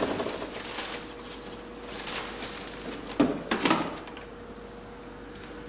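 A bicycle being wheeled in and handled: a few short knocks and rattles, the sharpest two close together a little past halfway, over a faint steady hum.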